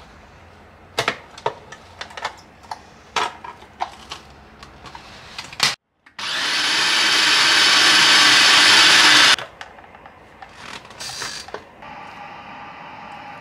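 Food processor: several sharp plastic clicks as the feed-tube pusher and lid are fitted, then about six seconds in the motor runs for about three seconds, chopping chicken mince, potato and corn kernels, growing slightly louder before it stops abruptly.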